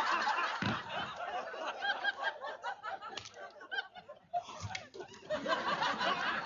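Studio audience laughing, many voices together; the laughter thins out about four seconds in and then swells again.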